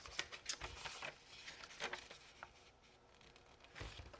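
Paper scraps being handled and laid down: a few light, irregular rustles and soft taps.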